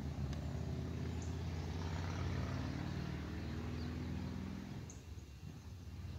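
A road vehicle's engine hum with slowly shifting pitch, fading out about five seconds in.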